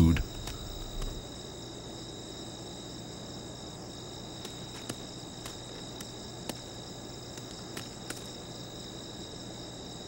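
Crickets trilling steadily in a night-time field, with a few faint clicks here and there.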